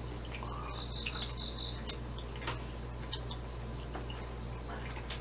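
Faint, scattered clicks and ticks of someone chewing a piece of salmon nigiri, over a steady low hum.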